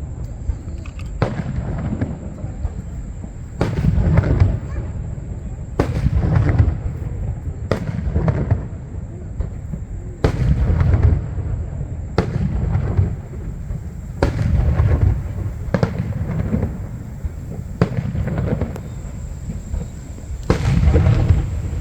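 Aerial fireworks shells bursting one after another, a deep boom every second or two, with low rumble rolling on between the bursts.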